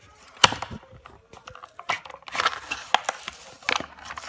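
Plastic blister packaging of a die-cast toy car being cracked and torn open by hand. It gives a series of sharp plastic snaps, the loudest about half a second in, with crinkling and tearing between them.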